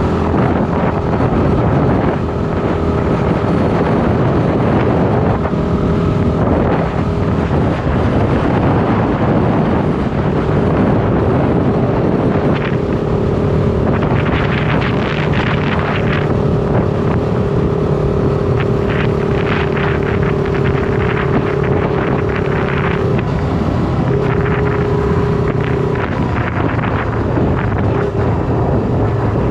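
Shineray SBM 250S motorcycle engine running while riding, with wind noise on the microphone. The engine note holds steady and shifts in pitch a few times as the revs change.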